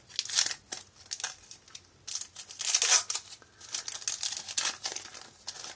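Wrapper of a 1989 baseball card pack being torn open and crinkled by hand, in several crackly rustling bursts. The loudest rip comes about three seconds in.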